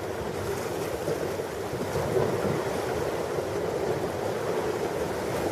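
Ocean waves washing onto a beach, a steady rushing noise, with wind noise on the microphone.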